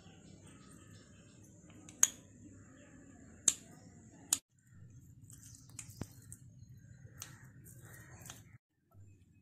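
A tiny steel cup clicking and clinking in the hand as boiled potatoes in it are pressed and mashed. There are three sharp clicks in the first half, then fainter scattered ticks.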